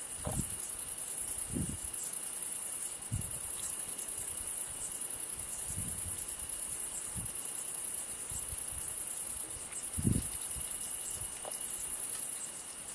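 Hedgehogs chewing and snuffling at a food dish in soft, low bursts every second or two, the loudest about ten seconds in. A steady high chirring of crickets runs underneath.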